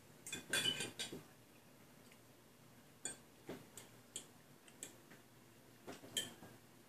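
Metal forks clinking and scraping on ceramic plates as food is eaten. A quick run of clicks comes in the first second, then single clinks follow every half second or so.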